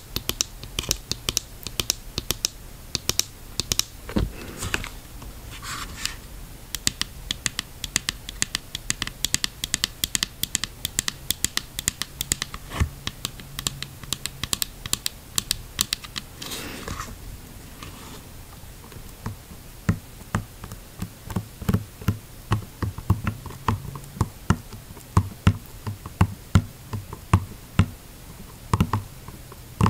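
Long fingernails tapping on a diving mask's lenses and frame: quick runs of light, sharp clicks, with a short scratching rub about four seconds in and again around sixteen seconds. Over the last third the taps come slower and fuller.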